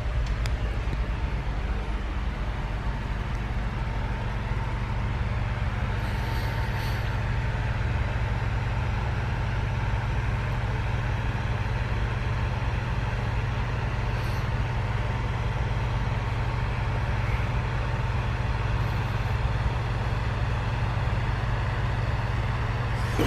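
Steady low hum and rumble of a cruise ship's machinery heard inside a cabin, unchanging throughout, with a couple of faint brief rustles.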